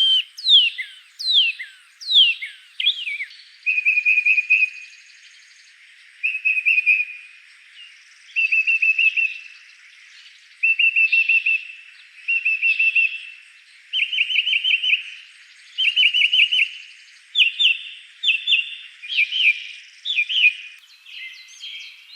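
A songbird singing: quick down-slurred whistles at first, then a string of short rapid trilled phrases about one every two seconds, then clearer slurred notes near the end.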